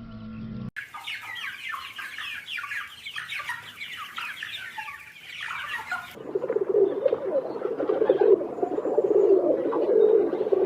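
Birds chirping busily in quick, high, downward-sweeping notes. About six seconds in, this gives way to a lower, dense clucking of poultry.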